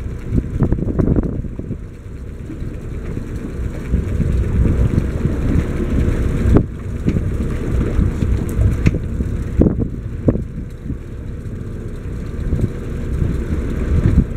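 Wind buffeting the microphone in a loud, uneven low rumble, with a few sharp knocks around the middle.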